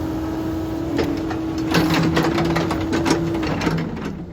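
Caterpillar 308 excavator running with a steady whine and repeated clattering knocks. About three and a half seconds in, the engine shuts off and winds down. A hydraulic line has just blown and is leaking.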